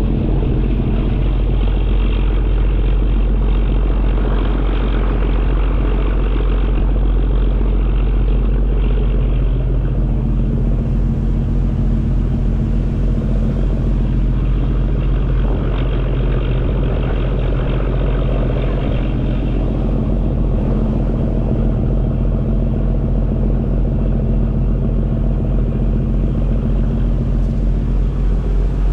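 A sightseeing boat's engine running steadily: a loud, even low drone with a constant hum.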